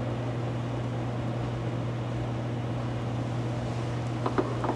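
Room tone: a steady low hum under an even hiss, with a few faint clicks a little after four seconds in.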